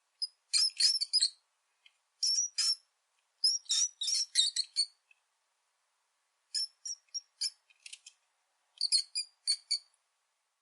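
A rat squeaking: quick runs of short, high-pitched squeaks, in five clusters with brief silent gaps between them.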